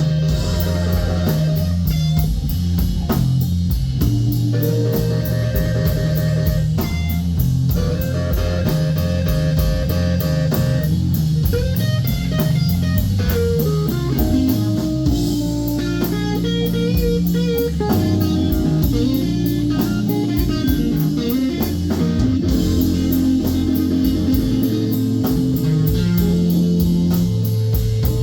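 Live electric blues band playing a slow instrumental passage: electric guitar over bass guitar and drum kit, with cymbal strokes keeping an even beat.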